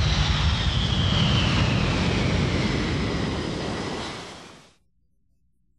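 C-17 Globemaster III's four turbofan engines running loud as the jet rolls past close by. A high whine falls steadily in pitch as it goes by, over a deep rumble. The sound fades out about four and a half seconds in.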